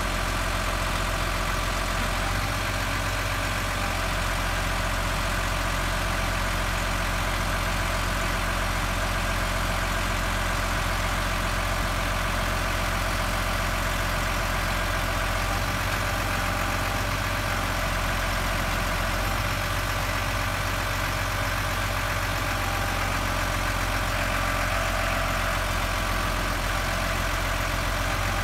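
New Holland TS6.125 tractor's diesel engine running steadily.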